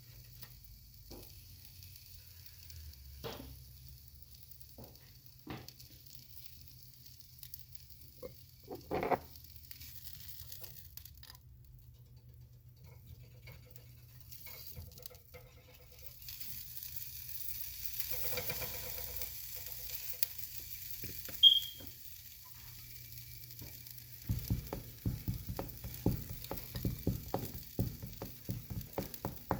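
Frozen sausages sizzling quietly in a frying pan, with a few scattered clicks of utensils or the pan. Near the end there is a quick run of ticking and knocking.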